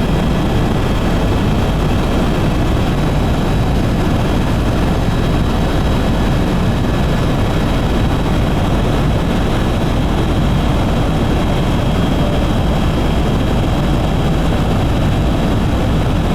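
Steady engine and rotor noise of a tour helicopter in flight, heard from inside the cabin, with a faint steady high whine.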